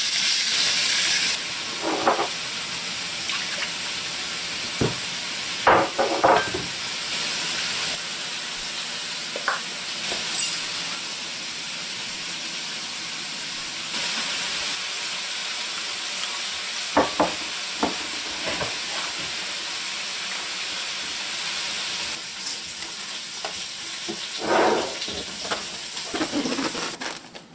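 Pieces of meat sizzling in a frying pan, stirred with a plastic spatula that scrapes and knocks against the pan now and then. The steady hiss drops in level a few times and eases near the end.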